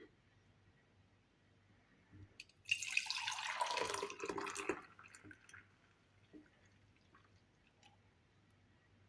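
Liquid juice poured for about two seconds, splashing, with the sound sliding lower as it goes. A few small drips follow.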